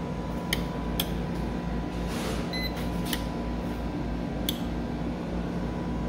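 Decorator-style rocker wall switch being flipped off and on by hand: several sharp clicks, two close together near the start and the rest spaced a second or more apart, over a steady low hum.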